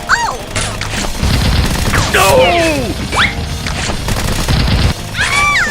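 Rapid gunfire sound effects with booming impacts over background music, with sliding, sweeping cartoon-style sound effects about two seconds in and again near the end.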